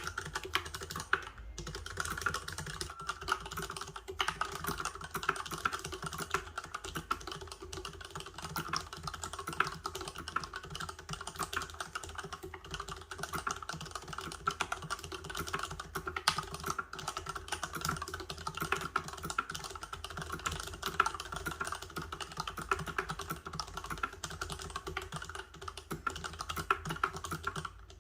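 Continuous fast typing on a Varmilo VA87 mechanical keyboard with Cherry MX Silent Red linear switches: rapid, dense, damped key clacks.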